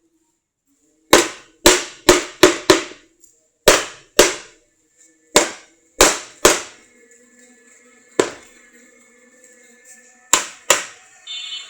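Hammer blows on wood while a wooden joint is fitted: about a dozen sharp strikes at an uneven pace, some in quick pairs and runs, with pauses of a second or two between groups.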